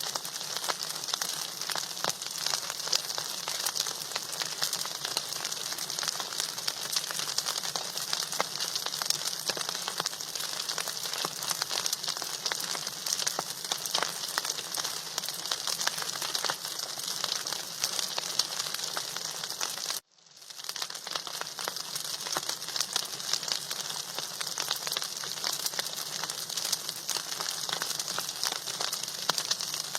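Food frying in hot oil in a pan, a steady dense sizzle and crackle. It drops out briefly about two-thirds of the way through, then resumes.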